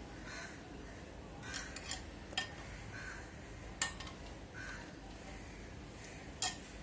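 Metal spoon stirring thinned curd in a glass bowl: soft wet swishes, with about five sharp clinks of the spoon against the glass.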